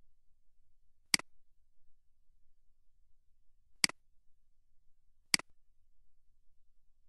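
Three sharp computer mouse clicks, spread a few seconds apart, over near silence.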